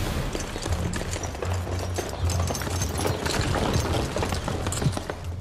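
Footsteps of a group of soldiers in boots marching across a courtyard, many quick, irregular steps, over low background music.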